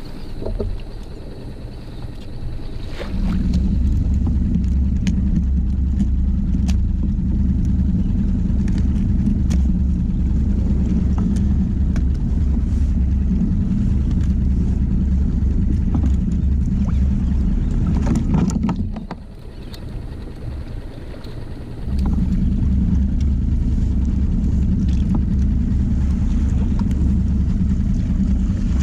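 Skiff's outboard motor running at a steady low drone. It drops away for a few seconds about two-thirds of the way through, then comes back.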